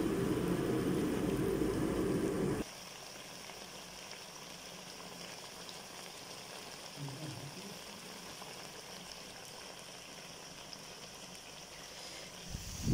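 Fish curry simmering in a kadai: a faint, steady sizzling hiss. For the first two and a half seconds a louder low rumble sits over it, then cuts off abruptly.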